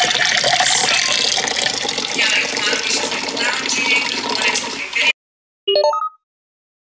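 Water from a refrigerator door dispenser pouring steadily into a pink insulated tumbler. It cuts off abruptly about five seconds in, and a brief pitched sound follows.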